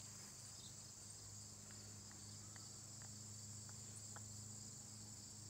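Faint, steady high-pitched chorus of insects, with a steady low hum underneath and a few faint ticks.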